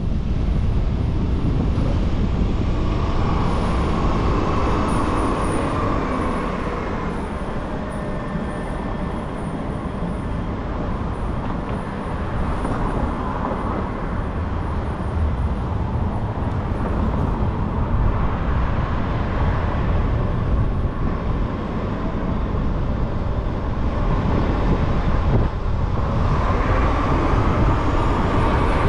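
A car driving through city traffic: a steady low engine and road rumble with tyre noise, swelling and easing a little as it goes.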